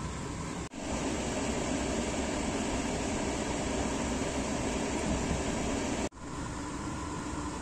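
A car's air-conditioning blower fan running steadily through the dashboard vents, an even rush heard inside the cabin. It cuts out for a moment twice, about a second in and near the end, and is slightly louder in between.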